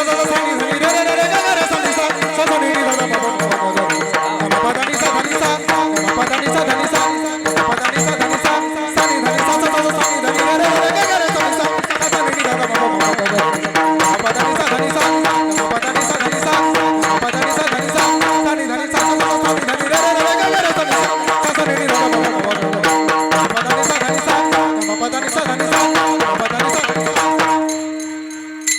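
Varkari kirtan music: mridang drumming with jingling percussion over a steady held drone and a wavering melody line.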